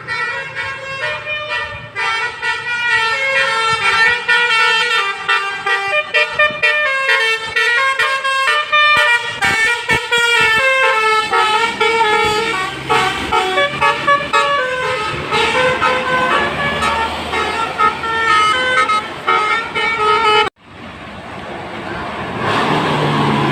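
Tour bus's multi-tone basuri horn playing a melody, note after note, for about twenty seconds. It then cuts off suddenly and a rising wash of noise follows.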